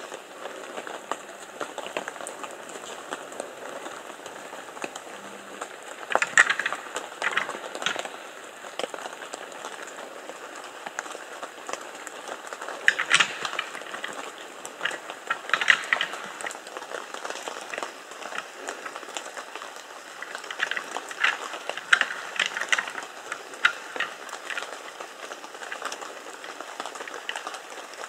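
Two red deer stags fighting during the rut, their antlers clattering and clacking together in three spells of sharp clicks and knocks.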